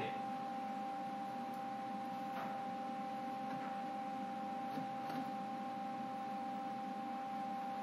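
Steady electrical hum with a constant high-pitched tone and a few faint ticks.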